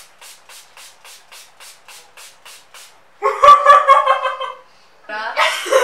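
Fine-mist pump bottle of makeup setting spray misted at a face in quick repeated squirts, about four short hisses a second for about three seconds. Then two bursts of laughter.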